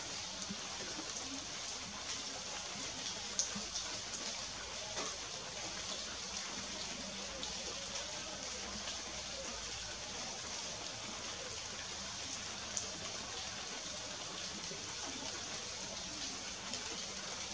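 Steady, high-pitched outdoor background hiss with a couple of faint sharp ticks.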